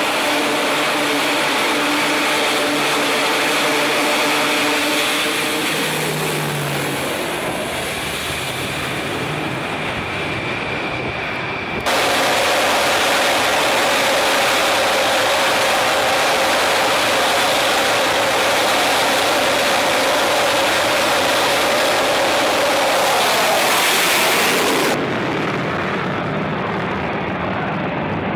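E-2C Hawkeye's turboprop engines running with a steady propeller drone. About twelve seconds in, after a cut, a Dassault Rafale M's jet engines run louder on the catapult, and near the end the jet sound is duller and quieter as the aircraft climbs away.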